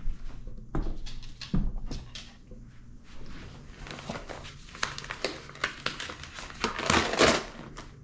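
Packaging crinkling and rustling as it is handled and opened, with irregular clicks and crackles that grow busier about halfway through and are loudest near the end.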